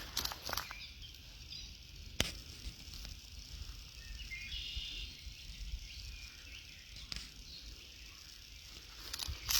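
Quiet woodland background with a steady high hiss and a short bird chirp about halfway through, broken by a few single twig clicks. Footsteps crunching on twigs and leaves start again near the end.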